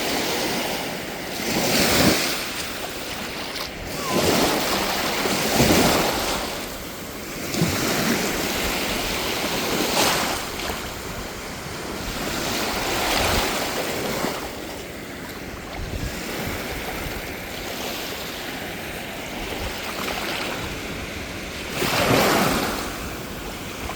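Sea waves surging and breaking on a beach, swelling and falling back every few seconds, with wind buffeting the microphone.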